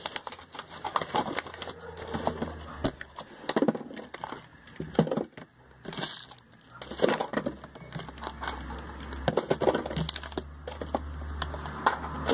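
Small cardboard product boxes and plastic bottles being handled, moved and set down on a table: scattered taps, knocks and rustles of packaging.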